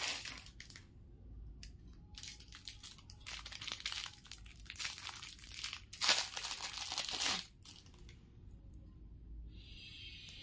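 Plastic jewellery packets crinkling and rustling as they are handled, in irregular bursts with pauses. The loudest stretch comes about six to seven and a half seconds in.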